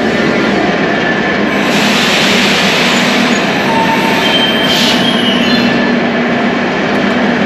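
Tashkent Metro train of blue Soviet-built cars running alongside the platform, a loud steady rumble and hiss. A brief high wheel squeal comes about four to five seconds in.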